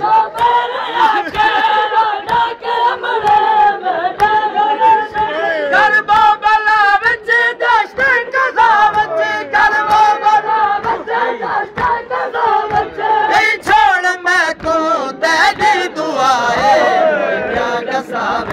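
Men chanting a Muharram noha (lament) together, led by a reciter reading the verses, with sharp slaps of matam (chest-beating) keeping a steady beat under the singing.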